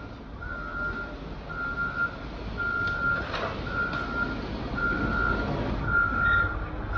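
A wheel loader's backup alarm beeping steadily at one pitch, about once a second, as the loader reverses, over the low running of its diesel engine.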